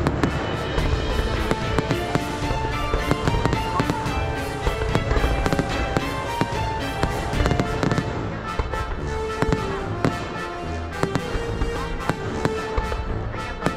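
Fireworks display going off: many sharp bangs and cracks in quick, irregular succession, over music with held notes.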